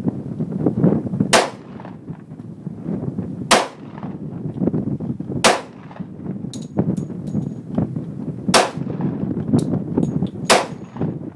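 Five shots from a Glock 20 10mm pistol, spaced about two to three seconds apart, over wind on the microphone. Between the later shots come a few light metallic clicks with a faint ring.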